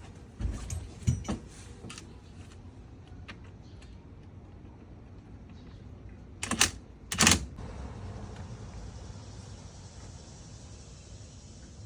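A few light knocks and clatters, then two louder, sharp metallic bangs about a second apart, over a low steady hum.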